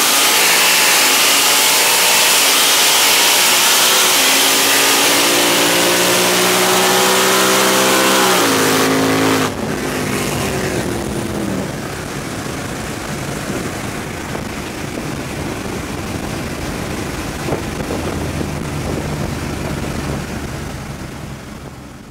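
High-horsepower street car engine at full throttle in a roll race, its pitch climbing steadily for about eight seconds with a shift near the end of the pull. Then the throttle lifts and the sound drops to a lower engine drone and wind noise, which fades near the end.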